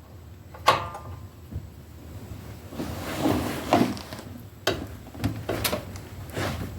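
Breaker bar and socket working a 22 mm bracket bolt tight: a few sharp metal knocks and clicks, with a rougher, louder stretch about three seconds in.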